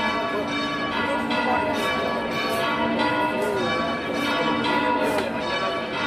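Church bells of the Cathedral of La Redonda ringing a peal. Strokes come about twice a second, and each bell's tone rings on and overlaps the next.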